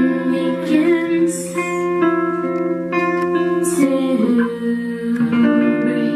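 Song with acoustic guitar and a woman singing over long held notes.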